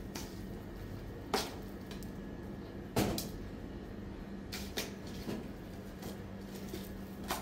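A few sharp knocks and clacks of hard objects being handled, the loudest about three seconds in, over a steady low hum.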